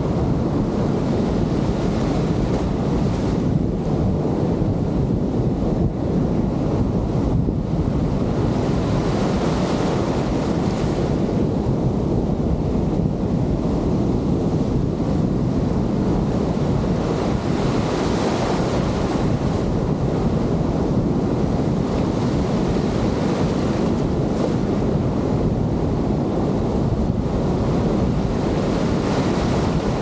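Breaking surf and foamy wash in shallow water, a steady rush with the hiss swelling as each wave rolls in, while strong wind buffets the microphone with a low rumble.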